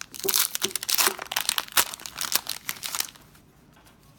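Foil-wrapped Magic: The Gathering booster pack crinkling and ripping as it is torn open, with dense crackling for about three seconds before it stops.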